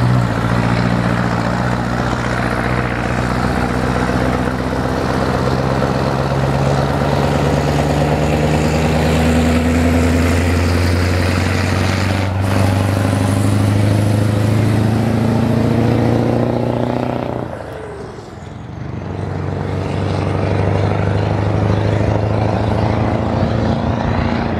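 Scania 142's V8 diesel engine pulling a fully loaded log truck and trailer, its note rising slowly under load as the truck accelerates. About two thirds of the way through the sound drops away briefly, then the engine is heard again at a steady pitch.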